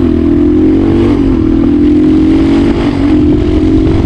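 Motorcycle engine running steadily while being ridden, a smooth-sounding single engine note that dips briefly about a second in and again around three seconds, as with throttle or gear changes.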